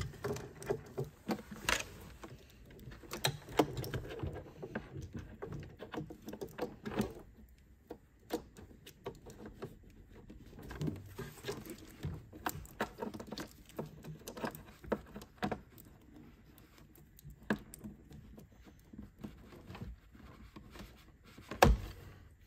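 Irregular clicks, knocks and rustling as hands handle cables and plug their connectors into the back of a Lowrance HDS Pro fish-finder display.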